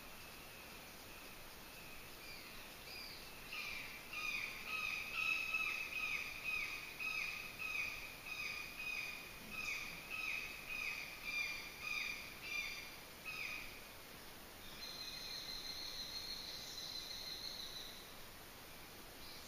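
Forest ambience: a bird calling a rhythmic series of short downslurred notes, about two a second, for around ten seconds. Near the end a steady high buzz takes over for a few seconds.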